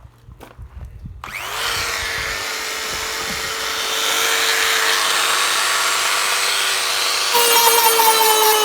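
A Dremel rotary tool switched on about a second in, spinning up to a steady high whine. Near the end it gets louder and its pitch sags slightly.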